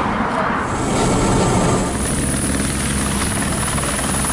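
A light single-engine helicopter, an AS350 Squirrel type, hovering just above the ground with its rotor and turbine running steadily.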